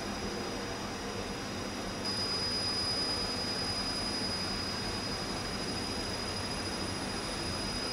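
Steady mechanical room noise, an even hiss with a thin, high-pitched whine running through it. It steps up slightly about two seconds in.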